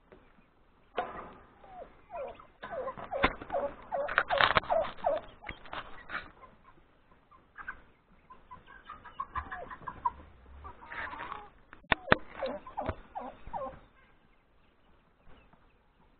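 Chickens clucking and calling in irregular bursts of short, pitched calls, with a few sharp clicks among them.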